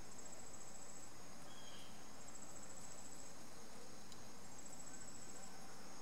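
Steady, high-pitched insect chorus outdoors, with a rapid pulsing high trill about a second long that repeats three times, roughly two seconds apart.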